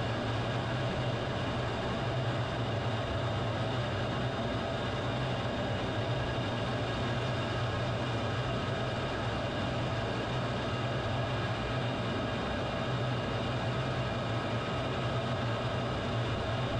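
Fighter jet's engine running steadily, heard from a camera mounted on the aircraft as it rolls along a highway: a strong low hum under a haze of rushing noise, with several steady whining tones over it.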